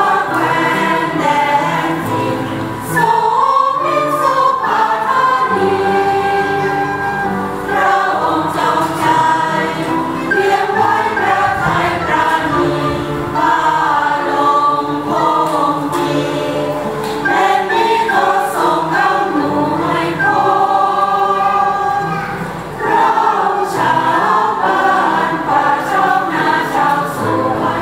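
Church choir singing a hymn in phrases, with an end-blown flute playing along.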